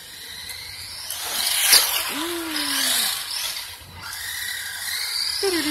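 Electric RC truck's motor and drivetrain whining as it drives on a concrete floor, the pitch rising as it speeds up. It swells about a second and a half in, fades around four seconds in and rises again near the end as the truck comes closer.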